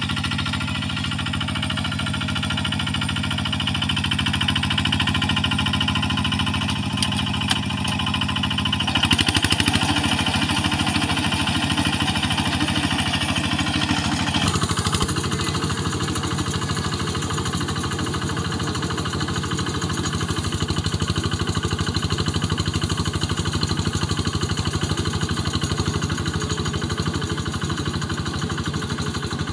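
Quick QH-11 combine harvester running, a loud steady engine and machinery drone with several steady tones; the sound shifts abruptly about nine seconds in and again about halfway through.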